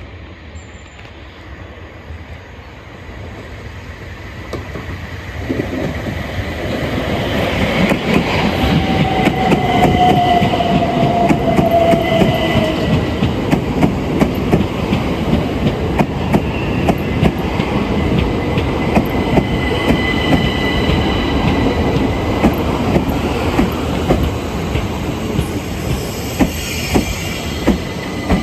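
Southeastern electric multiple-unit train approaching and running through, growing loud over the first several seconds, its wheels clicking steadily over rail joints, with high squealing tones from the wheels on the rails.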